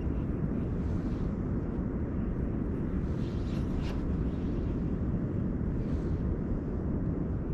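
Steady low rumble of wind buffeting the camera's microphone, with faint brief higher sounds about halfway through.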